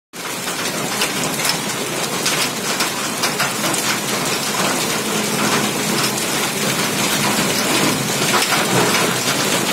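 Heavy rain mixed with hail: a steady hiss of falling rain with many small clicks of hailstones striking the ground and nearby surfaces.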